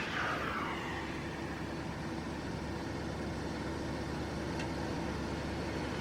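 Road traffic: a steady low engine hum, with a passing car's noise fading away in the first second and another car approaching near the end.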